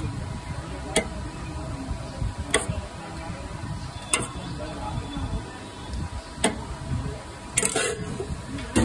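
A metal spoon clinks against a steel vessel as curd is scooped and spooned onto puris: single sharp clinks every second or two, with a quick cluster near the end. Under it runs a steady low rumble of background noise.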